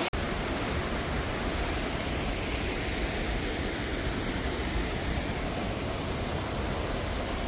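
Steady rushing roar of a waterfall, broken only by a momentary dropout right at the start.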